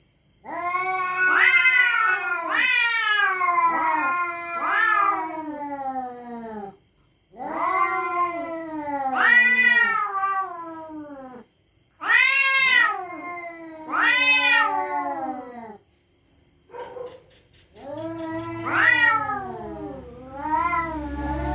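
Domestic cats caterwauling in a territorial standoff: long, drawn-out yowls that rise and fall in pitch, in several bouts with short pauses between them.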